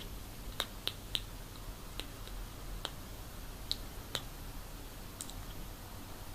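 Small wet smacking clicks of a kitten licking and mouthing at a person's lips and nose, about eight sharp little clicks at irregular intervals.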